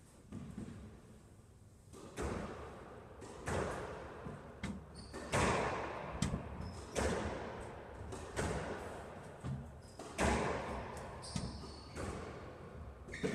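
Squash rally: the rubber ball cracking off rackets and the court walls roughly once a second, each hit echoing in the enclosed court, with a few short high squeaks between shots.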